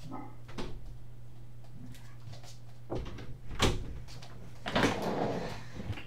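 A person moving about and sitting down in an office chair: a few sharp knocks, then a short rustling thump about five seconds in, over a steady low hum.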